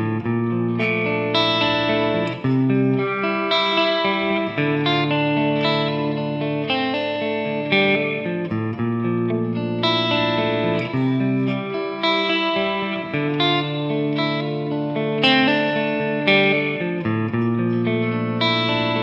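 Electric guitar playing a picked arpeggio sequence through D minor, B-flat major 7 and C major chord shapes, with open strings ringing into the fretted notes.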